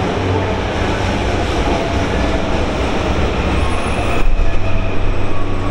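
Electric commuter train running past on the rails: a steady low rumble with wheel-on-rail noise, growing louder and rougher about four seconds in.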